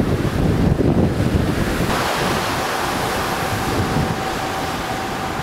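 Wind buffeting the microphone over the rush of water foaming along a large ferry's hull, the hiss of the water growing brighter about two seconds in. A faint steady hum runs underneath.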